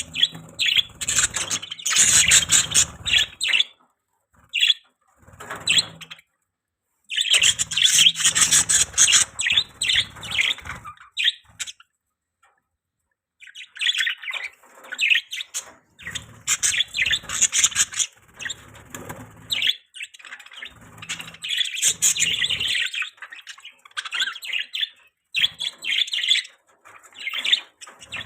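Budgerigars chirping and chattering in bursts of rapid, high warbling, broken by short pauses.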